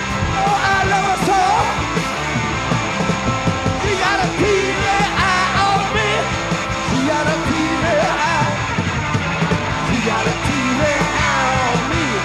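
Live punk rock band playing: electric guitars, bass guitar and drum kit, with a male voice singing over it.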